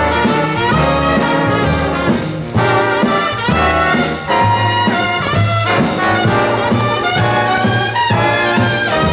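Instrumental break of a big-band boogie-woogie record played on a 78 rpm disc, with a brass section of trumpets and trombones over a steady walking rhythm.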